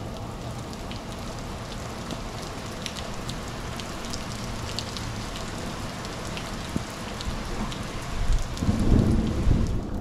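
Heavy rain falling steadily, with many sharp ticks of drops striking close by. About eight seconds in, a loud low rumble swells and becomes the loudest sound.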